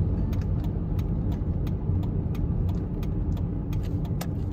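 Car cabin noise at highway speed: a steady low rumble of tyres and engine, with a sharp tick repeating about three times a second.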